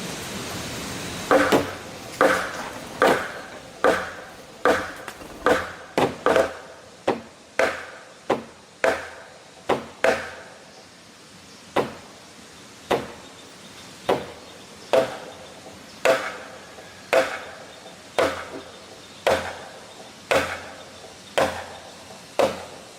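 A hand tool striking wood over and over, about one blow a second, each blow ringing briefly; the blows break off for a moment about ten seconds in, then resume.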